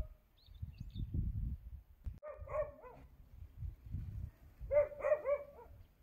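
A dog barking in two quick runs of three or four barks, about two and a half seconds in and again about five seconds in, over a low, uneven rumble.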